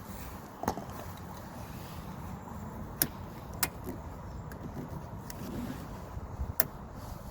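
Four sharp plastic clicks and snaps, spread over several seconds, as the Range Rover Sport's brittle plastic door-handle retaining clips are pressed and pried; the clips are breaking off.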